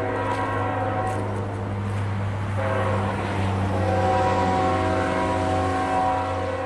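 Train's multi-chime air horn sounding long, held blasts, with a brief break in the chord about two and a half seconds in, over a low rumble. It is blowing for the approaching grade crossing.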